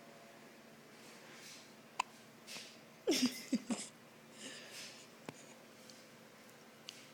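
One-week-old newborn baby hiccuping: a sharp single hiccup about two seconds in and another about five seconds in, with a quick run of three or four short squeaky hiccups, falling in pitch, near the middle. Soft breaths come between them.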